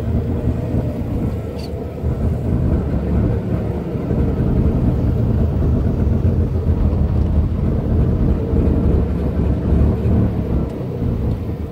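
Mazda RX-7's rotary engine and road rumble heard from inside the cabin while driving, growing louder after about two seconds.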